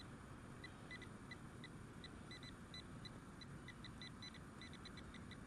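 Fisher F19 metal detector giving short, high beeps of one fixed pitch, several a second at irregular spacing, as the coil sweeps over a target.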